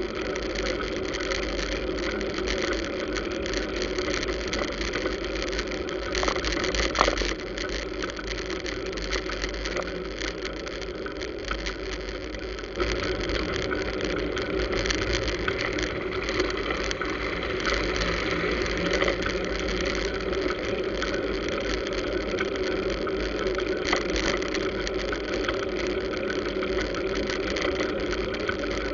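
Dense road traffic of motor scooters and cars running close alongside a bicycle, a steady mix of small engines over a low, fluctuating rumble. There are a couple of brief knocks about seven seconds in, and the traffic noise gets louder about thirteen seconds in.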